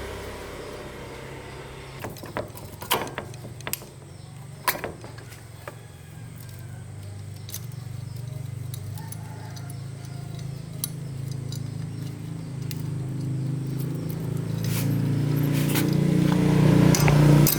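A motor runs steadily with a low hum that grows louder over the last few seconds. A few sharp metallic clicks and clinks sound in the first few seconds.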